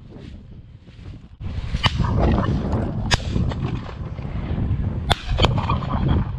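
Shotgun shots heard as four sharp cracks, two about a second apart and then two in quick succession, over a heavy rumble of wind on the microphone.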